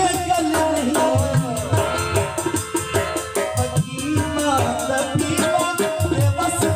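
Live qawwali accompaniment: tabla played in a quick, steady rhythm over held harmonium notes.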